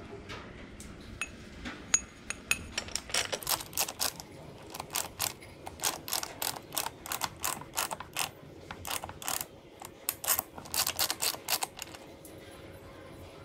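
Ratchet-like metal clicking during setup at a milling-machine vise while a steel tube is positioned in its jaws: sharp short clicks, about three a second in uneven runs, starting about two seconds in and stopping near the end, over a low steady workshop hum.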